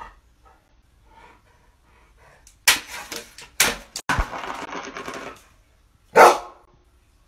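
A dog knocking its empty food bowl about on a wooden floor to ask for food: several sharp clatters and a rattling skid of the bowl, then a single loud bark near the end.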